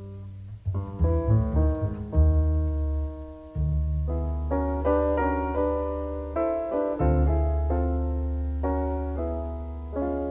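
Background instrumental music: piano notes and chords struck in short groups over long, held low bass notes.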